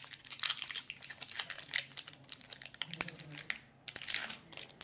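Foil wrapper of a Magic: The Gathering Commander Legends collector booster pack crinkling and crackling as it is opened and handled, a dense run of crackles with a short lull about three and a half seconds in.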